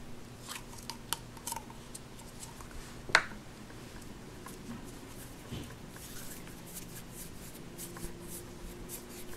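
Hands pulling modelling dough from a plastic tub and kneading and rolling it between the palms: soft rubbing and rustling with small clicks, and one sharper click about three seconds in, over a faint steady hum.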